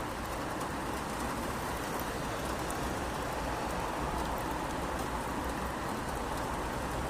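Steady rain falling on a city street: an even hiss with faint scattered drop ticks, over a low steady rumble. The hiss swells a little midway and eases again.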